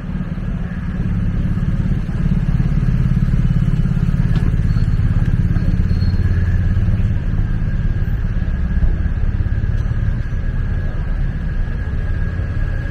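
Motor scooter engine running close by in street traffic, a low rumble that swells about a second in and eases slightly near the end.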